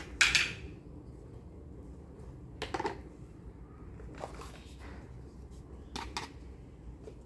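Small plastic toy pots, lids and a toy cutting board being handled and set down on carpet, making a few light plastic clicks and knocks. The loudest is a brief clatter just after the start, with others about three, four and six seconds in.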